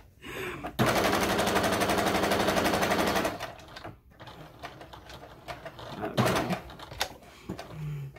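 Electric sewing machine stitching at a steady fast rate. It starts about a second in and stops about two and a half seconds later, followed by quieter scattered clicks.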